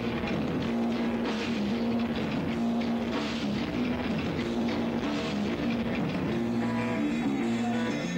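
A live rock band playing loud, with distorted guitar, bass and drums and repeated cymbal crashes, picked up by a camcorder microphone in the crowd.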